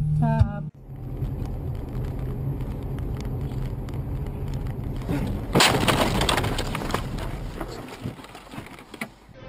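Car cabin noise from a dash camera, then about five and a half seconds in a sudden loud crash with crackling and breaking that fades over a couple of seconds: the camera car striking something as it passes a snowplow loader.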